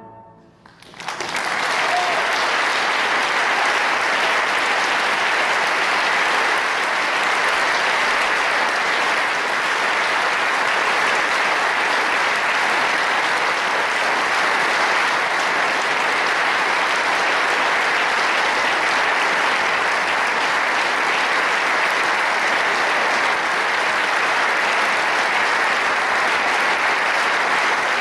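Audience applause, starting about a second in and holding steady.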